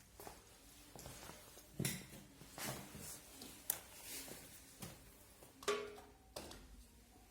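Scattered light clicks, taps and knocks of small parts and wires being handled on a workbench, spaced irregularly about a second apart.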